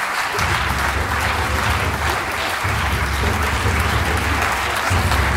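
Theatre audience applauding, a dense, steady clapping from many hands.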